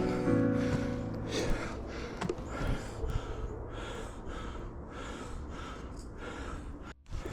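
The last piano notes die away, then a rhythmic series of soft rustling scrapes, about two to three a second, with a brief break near the end.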